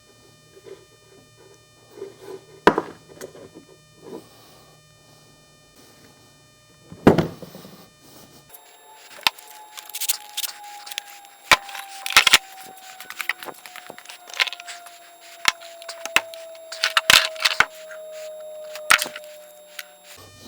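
Scattered clicks, clinks and knocks of tools and metal engine parts being handled on a bench, with two louder knocks in the first half. About eight seconds in, the background hum drops away, and a faint tone slowly falls in pitch under a run of quicker clicks.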